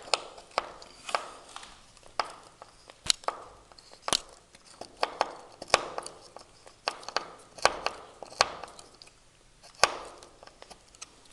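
Irregular sharp clicks and taps, with short scrapes between them, from a screwdriver working the Phillips self-tapping screws out of the upper hinge of a PVC balcony door.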